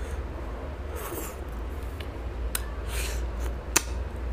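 Close-up mouth sounds of fish curry and rice being eaten by hand: wet chewing, smacking and sucking at a piece of fish. A few sharp smacks come through, the loudest near the end, over a steady low hum.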